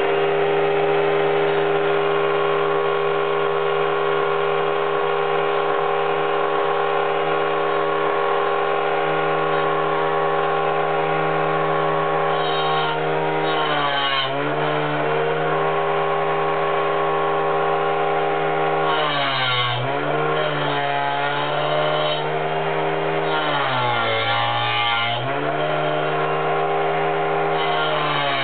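Battery-powered angle grinder with a toothed saw blade, running at a steady high-speed whine as it cuts a chipboard disc. From about halfway through, the motor dips in pitch and recovers several times with a rasping hiss as the blade bites into the board under load.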